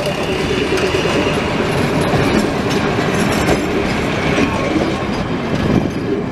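Vintage ČSD diesel railcars, an M152.0 and then an M131.1, passing close by: a steady rumble of engines and wheels, with scattered clicks of the wheels over the rail joints.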